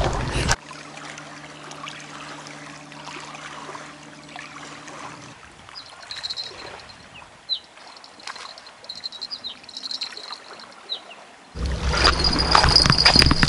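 Trickling, lapping river water with a few short high chirps. A low steady hum runs for the first few seconds, and a louder rush of low noise with a high steady tone starts near the end.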